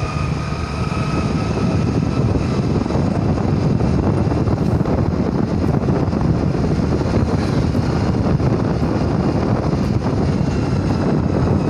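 Steady rush of wind on the microphone over a Honda Dio scooter running along the road at an even speed.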